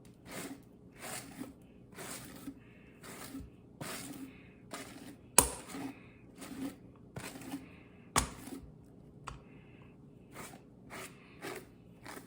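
Hairbrush dragged through a wet wig coated in conditioner, short repeated strokes about two a second. Three sharper knocks stand out among them, one about five seconds in and one about eight seconds in.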